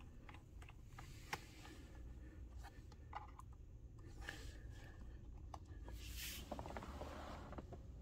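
Faint scattered clicks and scrapes of a small eyeglass-repair screwdriver turning a screw out of a laptop's plastic bottom cover, with hands handling the screw.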